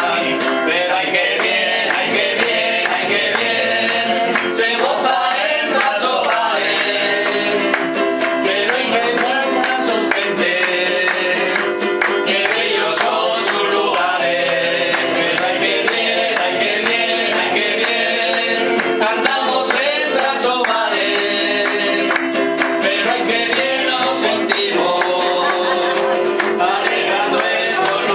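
A folk song performed live: singing with strummed guitar accompaniment.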